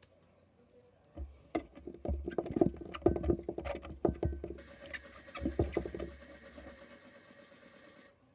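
Hands kneading and squishing wet putty slime with water worked into it: a run of sticky squelching clicks and pops with soft dull knocks, dying away about seven seconds in.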